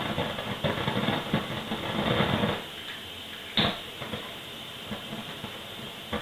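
Handheld torch lighter's flame hissing with crackle for about two and a half seconds, then a single sharp click about three and a half seconds in, followed by a fainter hiss.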